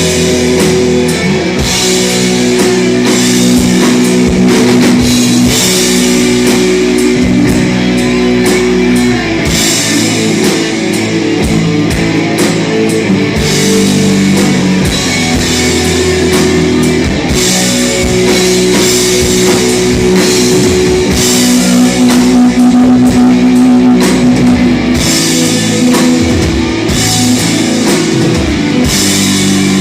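Loud rock music: electric guitar chords held over a drum kit.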